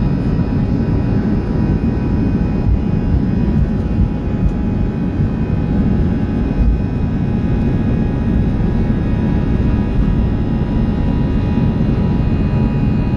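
Airbus A320's jet engines and rolling airframe heard inside the cabin: a loud, steady rumble with a few faint steady high tones above it.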